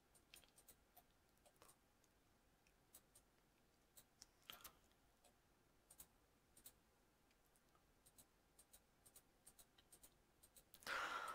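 Near silence broken by faint, irregular computer mouse clicks, with a short hiss near the end.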